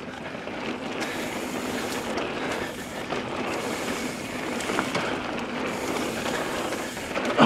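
Mountain bike rolling fast down a dirt flow trail: a steady rush of tyre noise and wind over the microphone.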